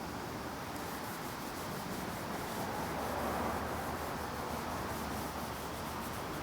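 A soft wax fill stick being rubbed into and wiped over the wood of a sleigh bed repair to hide it: steady rubbing, a little louder around the middle.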